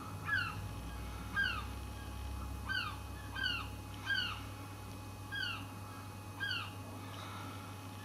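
A herring gull calling repeatedly from a rooftop: seven short, downward-sliding calls, spaced unevenly about a second apart.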